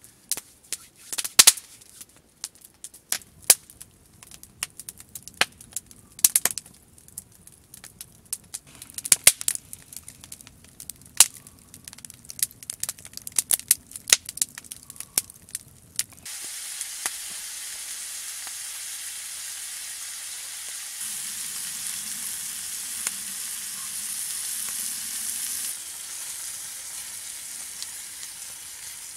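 A wood campfire crackling, with sharp irregular snaps, for roughly the first half; then, after an abrupt change, bacon-wrapped steak bundles sizzling steadily in a frying pan over the fire.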